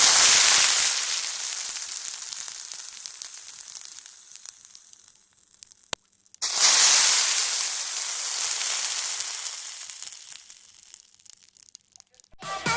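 Food frying in hot oil in a pan: a loud sizzle starts suddenly and slowly dies down. A second sudden sizzle follows about halfway through, just after a brief click, and fades again before music starts at the very end.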